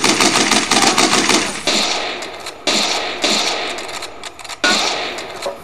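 Battle gunfire: a rapid machine-gun burst stops just under two seconds in, followed by three single rifle shots about a second or two apart, each fading away after it.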